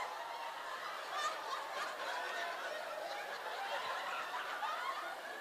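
Audience laughing, many voices overlapping at a steady level.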